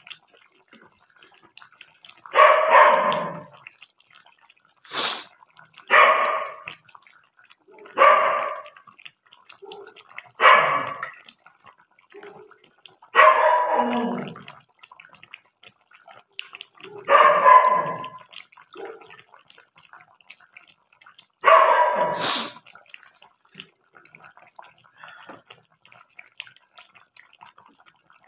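An animal calling repeatedly: seven loud calls, each about a second long, a few seconds apart, each dropping in pitch as it fades.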